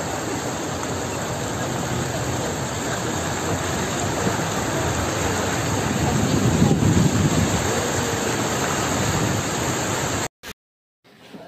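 Floodwater rushing and splashing against a vehicle wading through a flooded street: a steady, dense wash of water that swells about six to seven seconds in and cuts off suddenly near the end.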